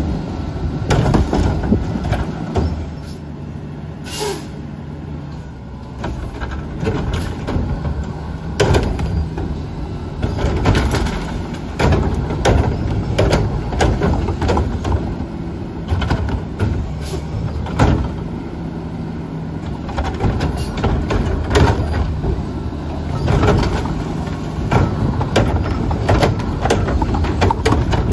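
Mack LR garbage truck's diesel engine running with the automated arm's hydraulics working as it lifts and tips recycling carts into the front-mounted can, with repeated clanks and bangs of the carts and the recyclables dropping in. A short hiss about four seconds in.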